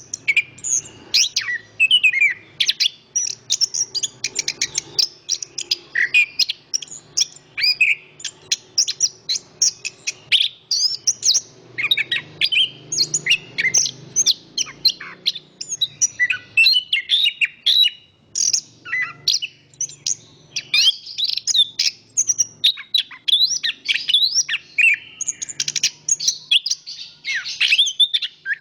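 Chestnut-capped thrush (anis kembang) singing a rapid, almost unbroken stream of high chirping and twittering notes, over a faint low background rumble.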